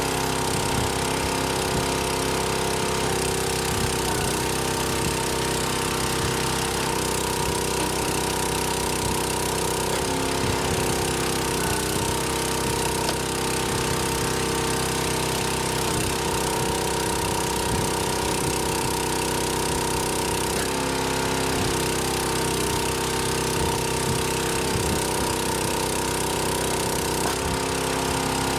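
Engine of a wood splitter running steadily, its note shifting every several seconds as the hydraulic load comes and goes.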